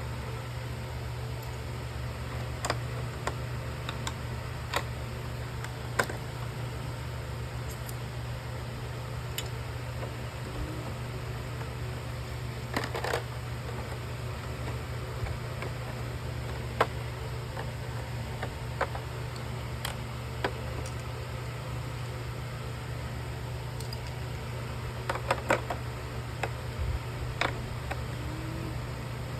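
Scattered light clicks and taps of hard plastic parts being handled, a few at a time with gaps of seconds between them and a quick cluster near the end, over a steady low hum.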